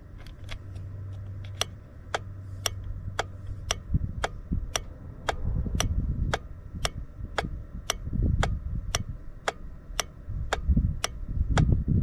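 Starter relay clicking in an automotive relay tester, switched on and off over and over at about two clicks a second; the tester reads the relay as good. Low rumbling noise builds underneath from about four seconds in.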